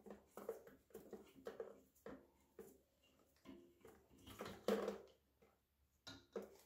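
Faint, irregular dripping and trickling of water leaking from a toilet's loosened supply-line connection into a plastic bucket, with a few light handling clicks.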